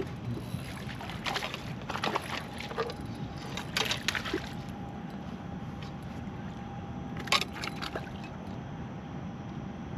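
Hooked walleye splashing and thrashing at the water's surface as it is brought in to the dock, in several short bursts of sloshing with one sharp splash about seven seconds in.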